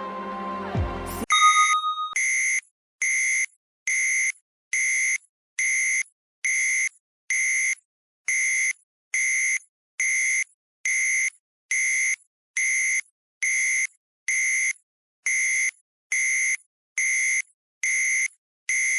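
Music ends with a falling sweep about a second in. A countdown timer's electronic alarm then beeps: one short lower tone, followed by a steady run of identical high beeps, a little faster than one a second, signalling that the timer has reached zero.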